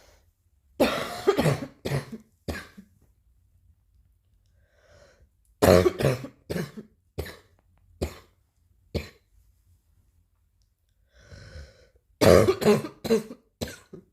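Three fits of coughing, each a run of about four to six coughs with the first cough the longest and the later ones shorter and quieter. A faint breath is drawn in shortly before the second and third fits.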